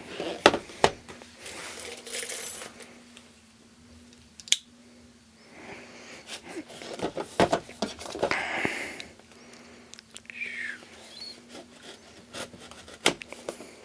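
Cardboard tablet box and a pair of scissors being handled on a wooden table: scattered sharp clicks and taps with patches of rustling, the sharpest click about four and a half seconds in.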